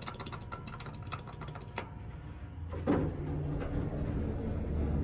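Westinghouse hydraulic elevator in operation: a rapid run of clicks for the first couple of seconds, then a thump about three seconds in and a steady low hum as the car gets under way.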